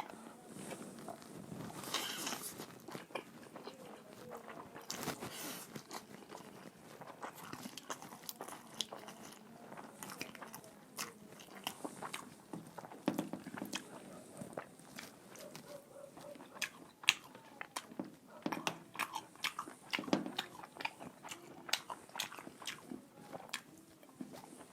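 Close-miked eating sounds: chewing and crunching food, with many small irregular mouth clicks and smacks.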